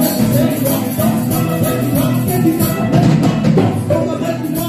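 Live band music: drums and percussion under a hammered dulcimer, with saxophone and trumpet in the ensemble.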